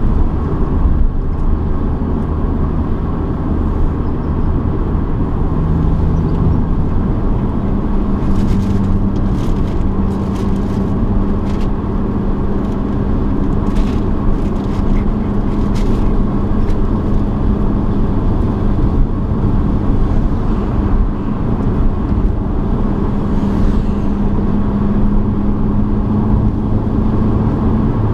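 Mini R50's four-cylinder petrol engine running with a Scorpion aftermarket exhaust, heard from inside the car over tyre and road noise while driving. Its note steps up about six seconds in, holds steady, and drops lower near the end.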